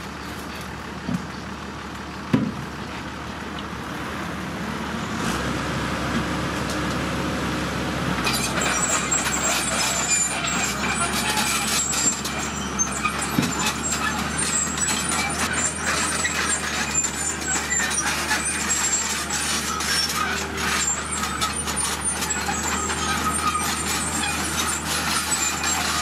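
Diesel dump truck running at a roadside tip, with two sharp bangs about one and two and a half seconds in as the tipper empties its load of rock. The engine then grows louder as the truck drives off along the gravel road, tyres crackling over loose stones.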